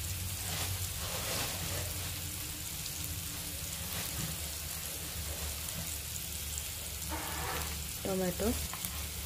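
Chopped onions and green chillies frying in oil in a pan, a steady sizzle.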